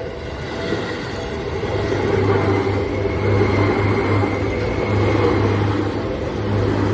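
A Seibu Railway electric train running past close by. It grows louder over the first two seconds, then holds as a steady rumble with a low pulsing hum and a faint whine.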